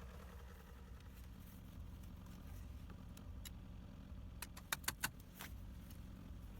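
A quick run of sharp metallic clinks, about four and a half to five and a half seconds in, over a faint low steady hum.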